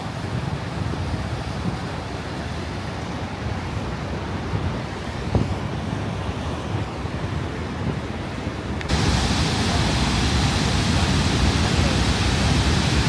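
Steady rush of Niagara Falls with wind buffeting the microphone; about nine seconds in, the roar of the falling water suddenly becomes louder and brighter.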